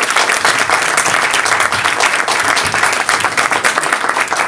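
Audience applauding: many people clapping in a dense, steady clatter.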